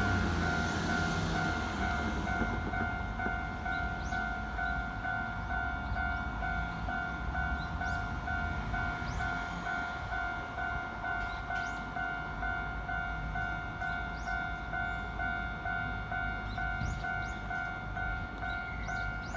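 Japanese railway level-crossing warning alarm ringing steadily in even, rapid strokes. The running noise of a passing electric train fades away in the first couple of seconds.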